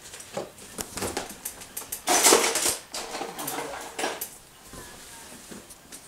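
Clattering of small hard objects being rummaged through and handled, with a series of clicks and one loud rattling burst about two seconds in, while a lighter is fetched.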